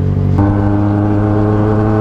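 Yamaha XJ6 motorcycle engine running steadily at a standstill, giving a deep, steady hum of unchanging pitch. About half a second in, the sound suddenly turns fuller, with higher tones added.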